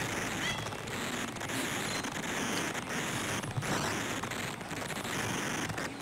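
Outdoor garden ambience: a steady noisy hiss across all pitches, with a few faint, short high bird chirps, about half a second and two seconds in.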